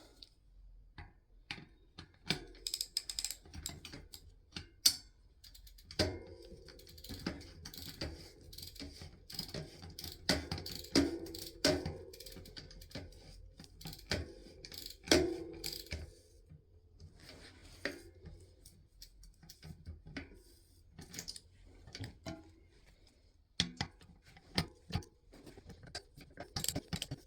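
Bicycle cassette lockring being tightened onto a mountain bike's rear hub: irregular metallic clicks, knocks and ratcheting from the tool and cassette, with a low ringing tone through the middle stretch.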